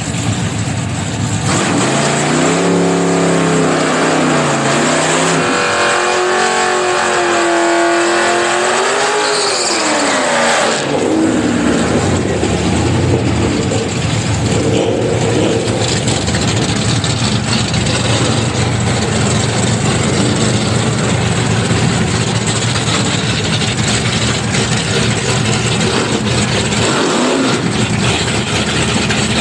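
Drag cars' engines revving hard in burnouts, the pitch climbing and falling several times, then settling into a steady loud idle as the cars creep up to stage, with one short rev near the end.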